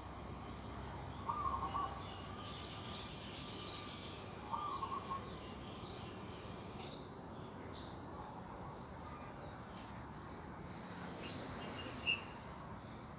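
Birds calling over a steady background hiss: two short, louder calls about a second and a half and four and a half seconds in, fainter high chirps scattered between and after, and one brief sharp chirp near the end.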